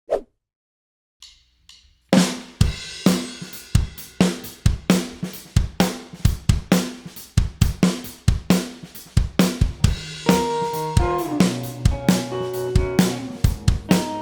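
Rock band intro: a drum kit comes in about two seconds in with a steady beat of kick, snare, hi-hat and cymbals. Held bass and electric guitar notes join around ten seconds in.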